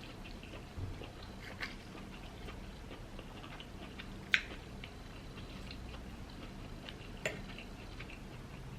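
Quiet chewing of lobster claw meat with a few small sharp clicks, the loudest a little before the middle.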